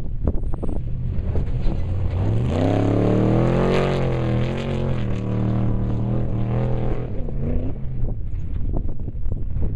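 Off-road race vehicle's engine coming up and driving past under power; its pitch swells and bends about three seconds in, then holds and fades away, over a steady rush of wind and dirt noise.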